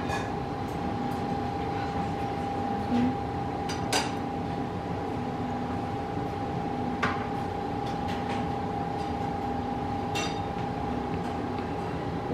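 A few light clinks of dishes and utensils, the clearest ringing about four seconds in, over a steady low hum from kitchen equipment.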